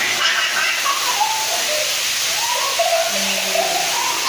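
Spring water pouring steadily from a pipe and splashing onto bathers, a constant rushing hiss. Children's short shouts and calls rise over it.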